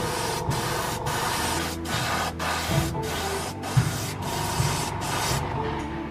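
Background music: a hissing, rhythmically stuttering electronic track over held tones and shifting bass notes.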